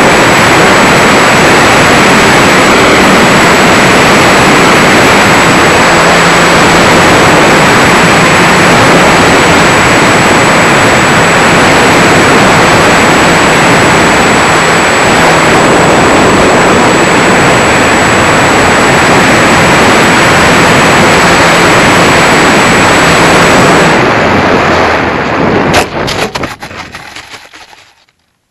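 E-flite Wildcat electric RC warplane in flight, heard from a camera on its nose: loud, steady wind and propeller buffeting with a thin high whine. About 24 s in, the whine stops and the noise falls away as the motor is cut. Near 26 s a sharp knock marks the touchdown on grass, and the plane rattles and scrapes to a stop.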